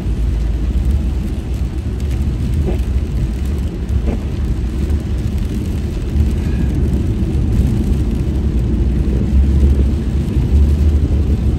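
Steady low road noise inside a car's cabin while driving on a wet freeway: tyres on rain-soaked pavement and the car's running gear.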